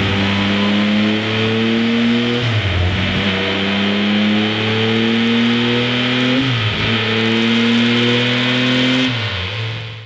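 Triumph Tiger 1200 Explorer's three-cylinder engine pulling on a dyno, its revs climbing steadily through three long pulls, each ending in a brief drop as the gear changes. The sound fades out near the end.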